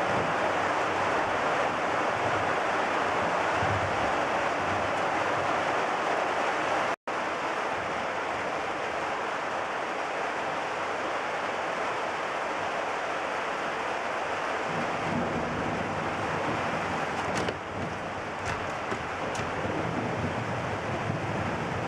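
Steady downpour of a thunderstorm, with rain and wind making an even rushing noise. It cuts out completely for an instant about seven seconds in, then carries on a little quieter, with a few faint ticks near the end.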